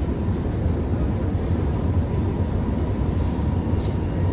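Alstom Movia R151 metro train running, heard inside the passenger car: a steady low rumble of the wheels on the track with a faint steady high tone over it and a few light high ticks.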